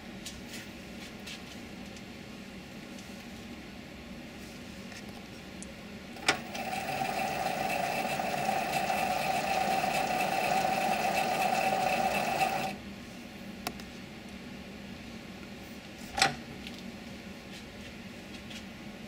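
7x16 mini lathe running with a steady hum. About six seconds in a sharp click, then for about six seconds a louder whine with two steady tones while a threading pass feeds the tool along the work, stopping abruptly; another sharp click a few seconds later.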